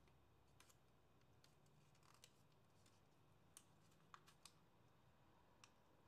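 Near silence with a few faint, sharp crackles of origami paper being creased and pressed by hand, three of them in quick succession a little past the middle.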